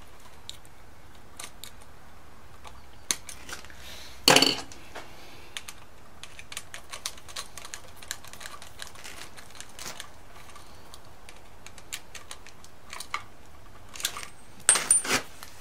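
Light clicks and taps of hands and a tool working wires onto a wall switch's screw terminals, with a louder knock about four seconds in and another pair near the end.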